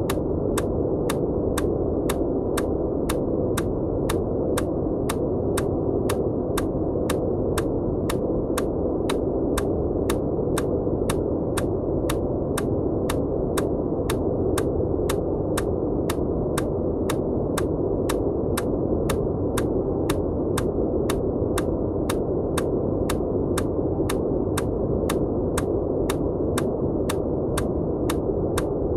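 Steady white noise, heavy and rushing with little hiss, overlaid with an EMDR track of short, evenly spaced clicks at about two a second.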